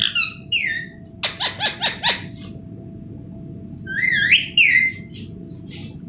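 Indian ringneck parakeet whistling and chirping: two falling whistles at the start, a quick run of about five short notes a little over a second in, and a wavering warble about four seconds in.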